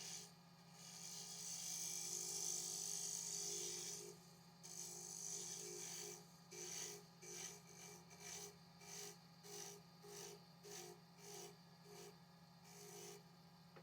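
Abrasive rubbing on willow wood, most likely sanding the pen blank: one long continuous pass for the first few seconds, then about a dozen short back-and-forth strokes at roughly two per second.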